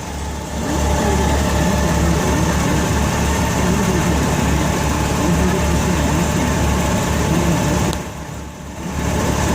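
Motorcycle engine idling steadily close by, easing off briefly near the end, with faint voices in the background.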